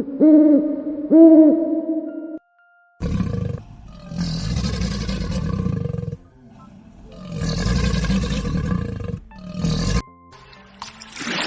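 Two pitched hoots from an owl-like call, then a big cat roaring and growling in two long rough bouts and a short third one. Music starts near the end.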